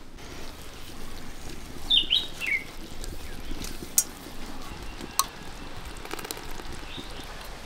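A bird gives a few quick chirps about two seconds in, over steady low background noise. Two sharp clicks follow a couple of seconds later, and the first is the loudest thing here.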